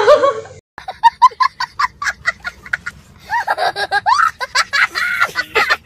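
A child laughing hard: a run of quick, choppy bursts of laughter, then longer, higher peals in the second half. A moment of speech cuts off abruptly just before the laughter starts.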